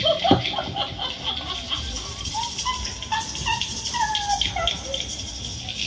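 Short, bird-like whistled calls, several sliding downward in pitch, over a steady high-pitched pulsing chirr like insects in a nature soundscape.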